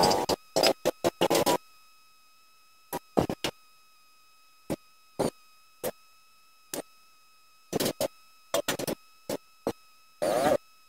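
Short, irregular clusters of metallic clanks and rattles as a mountain bike's suspension fork is twisted and worked in the head tube to get the headset off. The headset is stuck and very hard to remove. The loudest cluster comes near the end.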